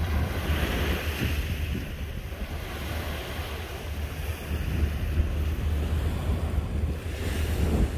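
Small waves washing onto a sandy beach, surging about half a second in and again near the end, over a steady rumble of wind on the microphone.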